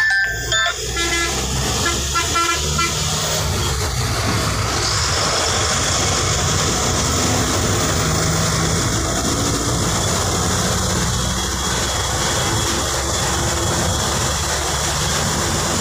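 A bus's engine running steadily under constant road and wind noise, heard from inside the driver's cab while cruising.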